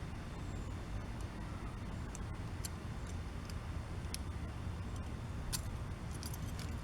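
Metal handcuffs being worked loose behind the back: scattered faint sharp clicks and small rattles, a few seconds apart, over a steady low hum.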